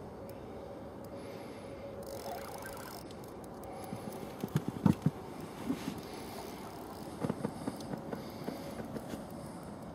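Steady hiss with a faint hum, broken by two runs of short knocks and clicks, the loudest about five seconds in and a second run about seven to nine seconds in.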